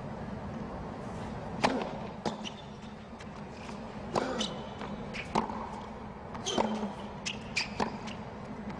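A tennis ball being struck by rackets and bouncing on a hard court: a series of sharp pops, mostly about a second apart, with a few short high squeaks between them, over a low crowd murmur.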